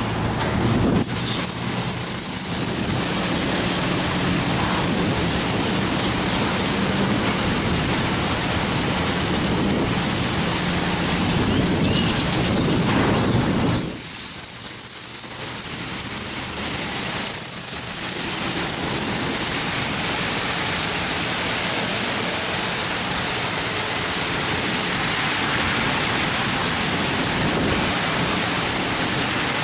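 Mark VII ChoiceWash XT automatic car wash running: a steady hiss of water spraying in the wash bay over a low machine hum. About fourteen seconds in, the low hum drops away for a few seconds, then returns.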